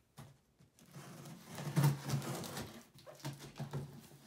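Cardboard shipping box being opened: packing tape cut and torn off with a rasping, buzzy tear, loudest about two seconds in, then cardboard flaps and contents rustling.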